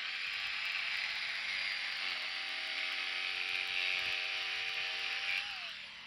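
Corded jigsaw cutting through PVC pipe: a steady rasping cut with a motor whine that comes in about two seconds in. Near the end the motor winds down, its pitch falling, as the saw is switched off.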